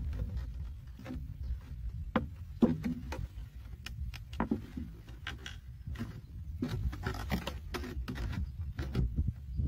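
Irregular clicks and crackles of a cut plastic bottle being handled and pressed, over a steady low rumble.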